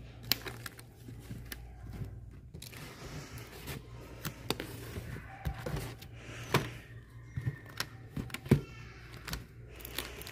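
Comic books being flipped through and handled: irregular light taps and clicks, over a steady low hum.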